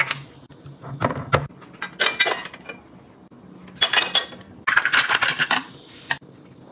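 Glass condiment bottles and a stainless-steel funnel being handled, clinking and clattering in five or six short bursts of knocks and clinks, with a faint hum between them.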